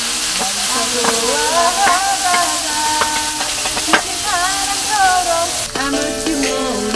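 Pork belly and kimchi sizzling on a round black griddle, with a few sharp clicks of tongs against the plate as the food is turned. A tune is heard over the sizzle.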